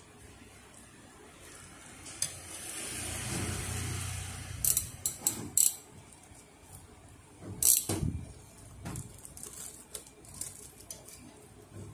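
Ricoh 5001/5002 fuser cleaning-web unit handled by hand as a new oil web is wound onto its rollers: a rustle of the web cloth for a couple of seconds, then a few sharp clicks of the rollers and metal bracket about five seconds in, the loudest near eight seconds, with lighter ticks after.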